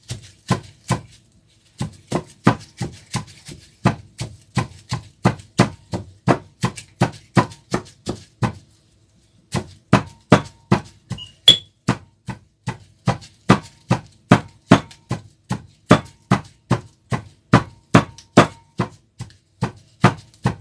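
Pestle pounding garlic, dates and spices in a mortar: steady, evenly spaced strikes, about two to three a second, with two short pauses.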